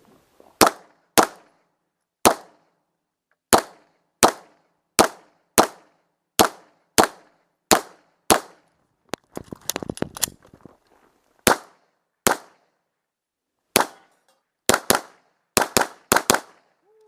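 A handgun fired in a timed string: about eleven single shots, a short break filled with quieter rattling clicks about halfway through that fit a magazine change, then about ten more shots coming faster toward the end.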